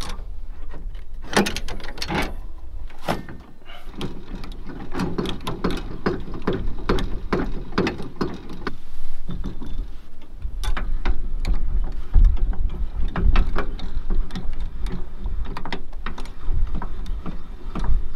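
Clicks, knocks and clunks of a camping trailer's hitch coupling and twin jockey wheel being worked by hand, with a dense run of rapid clicks in the middle. Wind rumbles on the microphone in gusts near the end.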